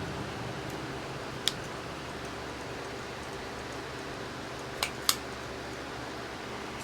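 Three short sharp clicks, one about a second and a half in and two close together near the end, from small metal parts or a tool being handled, over a steady low background hum.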